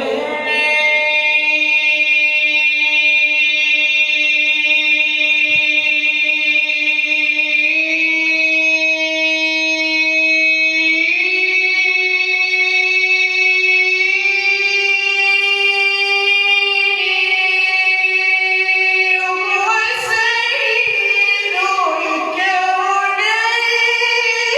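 A solo voice singing an Arabic devotional chant, holding one long unbroken note that steps up in pitch a few times. It turns into wavering ornamented runs in the last few seconds.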